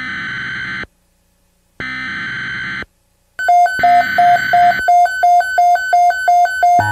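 Emergency Alert System end-of-message data bursts: three buzzing digital squawks, each about a second long, marking the end of the warning broadcast. During the third burst a fast, even electronic beeping begins, about four beeps a second, and an electronic music bed with a low bass joins it near the end.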